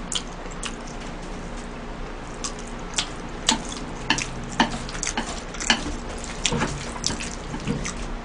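Wooden chopsticks digging wet, sauced spaghetti out of a metal tray and dropping it onto a plate. The sound is a run of short, wet clicks and squelches, about one every half second.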